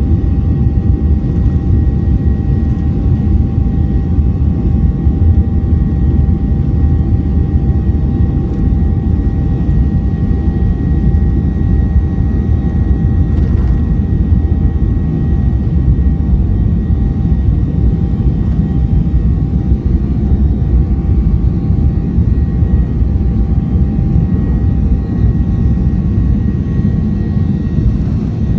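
Boeing 737-800's CFM56 turbofan engines at takeoff thrust during the takeoff roll, heard inside the cabin. The sound is a loud, steady rumble with a few steady whining tones above it.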